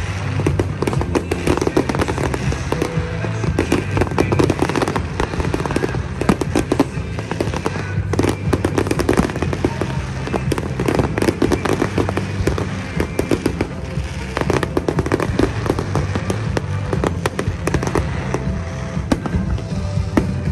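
Fireworks bursting and crackling in rapid, continuous succession, with loud music playing underneath.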